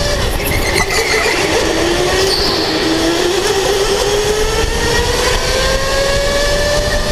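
Electric go-kart motor whining, its pitch falling as the kart slows through a corner and then rising steadily as it accelerates along the straight, over a loud steady rumble of noise.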